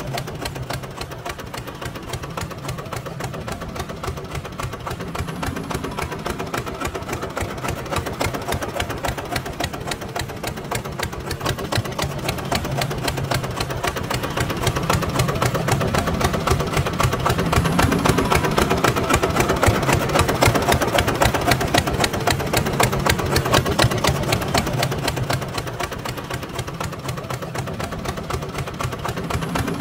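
Small electric gear motor of a toy RC tractor running with a fast, even rattle over a low hum, growing louder in the middle and easing off again.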